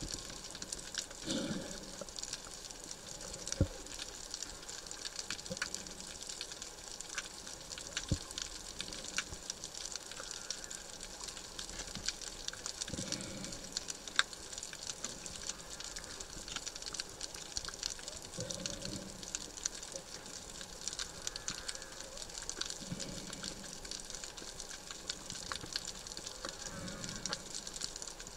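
Underwater ambience picked up by the camera: a steady hiss scattered with sharp clicks and crackles, with a few muffled low whooshes of water moving every several seconds.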